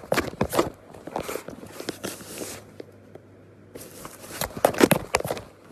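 Cat moving about inside a cardboard box: scratchy rustling, scraping and knocking against the cardboard in uneven bursts, quieter for about a second near the middle.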